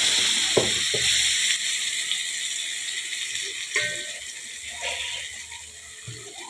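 Ground masala paste sizzling in hot oil with mustard seeds and curry leaves, a steady hiss that dies away gradually as the paste cools the oil. A few light knocks near the start and about four seconds in.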